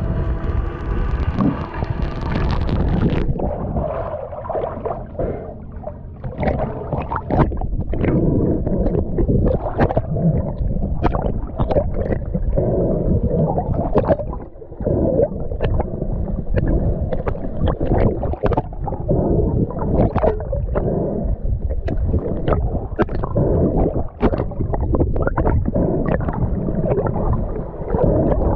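Underwater sound heard through a camera's waterproof housing: a low, muffled rumble of moving water with gurgling and frequent short clicks and knocks. A steady hum with several overtones runs for about the first three seconds, then stops.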